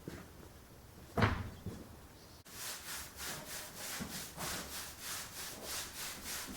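A hand tool worked back and forth over a wooden board in even strokes, about three a second, after a single knock about a second in.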